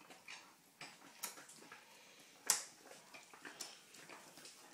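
Dogs chewing dried pig's ears: faint, irregular crunching and cracking, with one louder crack about two and a half seconds in.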